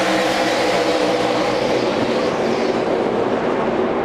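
A pack of NASCAR Truck Series race trucks at racing speed, their V8 engines blending into one loud, steady drone.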